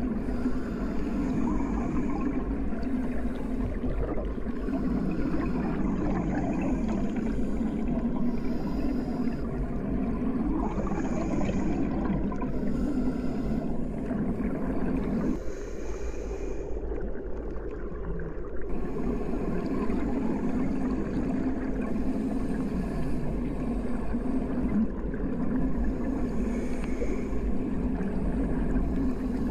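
Underwater sound picked up by a submerged microphone: a steady low rumble of moving water with gurgling. It drops away briefly about fifteen seconds in and returns about three seconds later.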